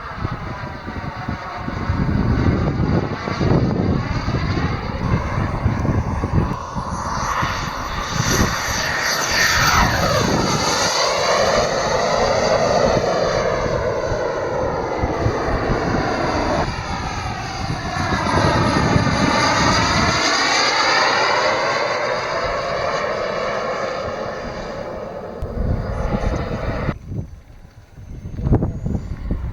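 Turbine engine of a large T1-class RC sport jet running at high power through several fast passes. The roar and high whine swell and sweep in pitch as it goes by, then fall away near the end.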